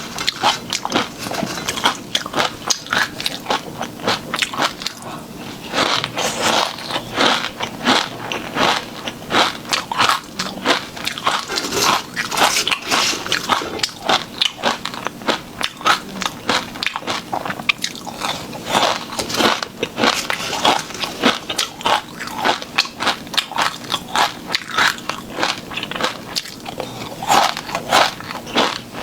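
A person biting and chewing sauced shrimp close to the microphone, with rapid, irregular crunching throughout.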